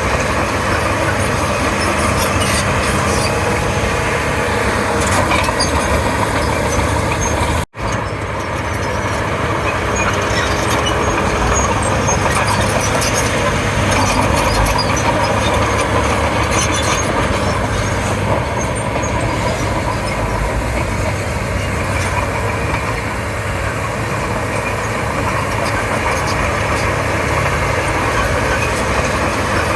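Komatsu D31P crawler bulldozer's diesel engine running steadily at work, with scattered short clanks over it. The sound cuts out for an instant about eight seconds in.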